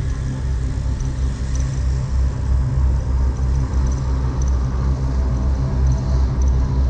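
Sci-fi UFO hovering sound effect: a deep, steadily pulsing hum, with faint high twinkling tones that come and go above it.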